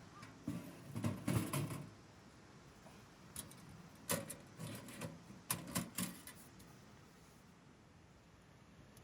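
Two bursts of irregular knocks and clicks, like objects being handled and set down, the first about half a second in and the second about four seconds in.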